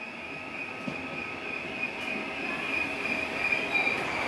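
Passenger train running along the coastal line, heard from aboard: a steady high wheel squeal over the rumble of the carriage, growing louder.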